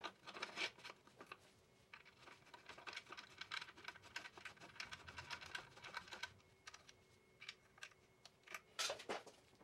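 Light clicks and scratches of gloved hands handling a bicycle's rear wheel and carbon frame during assembly, with a louder scrape near the end.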